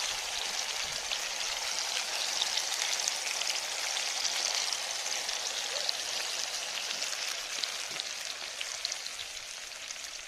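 Green-masala-coated fish frying in hot oil: a steady sizzle dotted with small crackles and pops, easing slightly toward the end.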